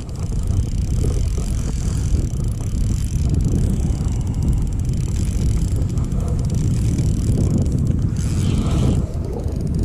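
Wind buffeting the microphone in a low rumble, with a fishing reel being cranked as a hooked fish is played.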